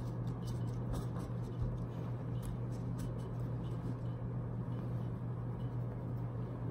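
Ceiling fan running with a steady low hum, with faint scattered light ticks and rustles of trading cards being handled.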